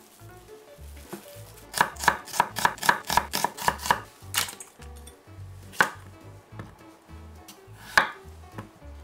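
Kitchen knife chopping on an end-grain wooden cutting board: a quick run of about six strokes a second for two seconds, then a few single cuts, the last one through a cucumber.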